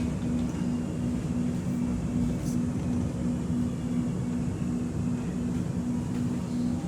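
Running noise heard inside an X'Trapolis 2.0 electric suburban train: a steady rumble with a constant low hum.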